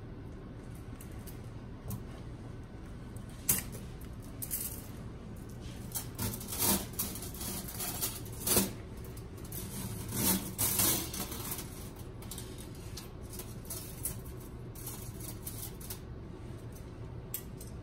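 Stainless steel surgical instruments (ring-handled clamps) clinking against each other and the wire mesh instrument tray as they are handled and laid in. Scattered metallic clicks and jingles, busiest around the middle, over a steady room hum.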